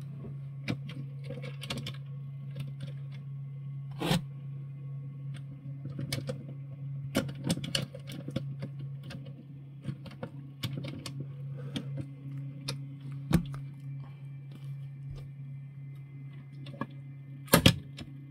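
Small clicks and taps of a Matchbox Moving Parts Seagrave toy fire truck being handled, its plastic ladder raised and extended by hand, with a sharp cluster of clicks near the end. A steady low hum runs underneath.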